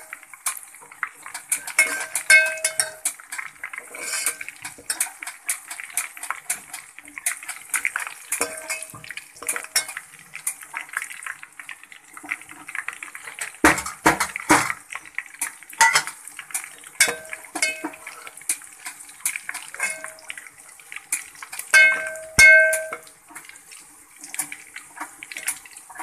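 A steel spoon stirring and scraping in a steel pot, knocking against its sides so the pot rings, with the loudest clusters of knocks about halfway through and again a few seconds before the end. Under it, a faint hiss of sliced onions and whole spices frying in oil.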